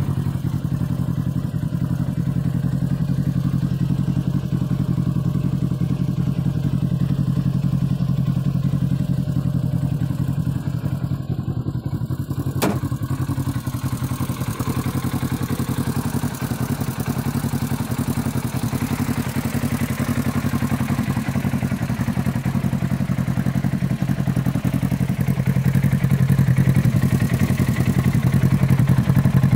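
2017 Polaris RZR XP 1000's twin-cylinder engine idling steadily, with a single sharp click about halfway through, a little louder near the end.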